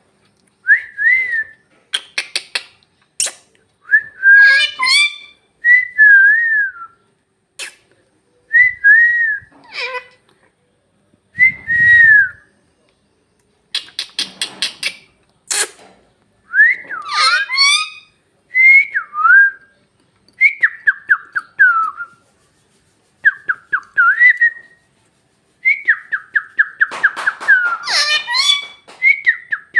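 A pet parrot whistling a series of short rising-and-falling phrases, mixed with quick runs of clicks and harsher chattering calls, with brief pauses between bouts.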